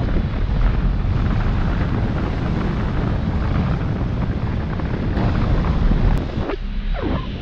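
Wind rushing over the microphone of a paraglider pilot's camera in flight, a loud, rough rumble that eases off briefly twice near the end.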